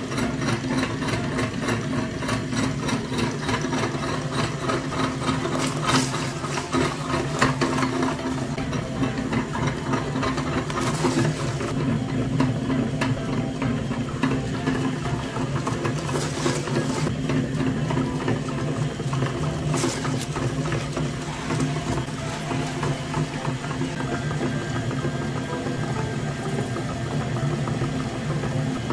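Electric meat grinder running steadily, grinding chocolate-coated wafer ice cream cones, with scattered crackles from the crushed cones.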